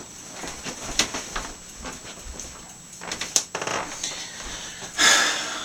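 Handling noises: scattered knocks and clicks, with a short burst of rustling near the end.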